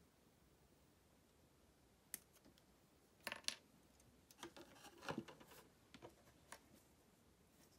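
Faint clicks and knocks of hard plastic model-kit parts being handled and fitted together: a single click about two seconds in, a quick cluster just after three seconds, a longer clatter around five seconds, then a few scattered clicks.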